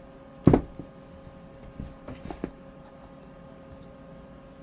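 A sharp tap about half a second in, then a few light clicks, from oracle cards being handled on a table.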